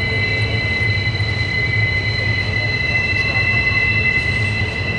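Freight train of double-stack container well cars rolling slowly around a tight curve, the wheels squealing against the rail in several steady high tones over a constant low rumble.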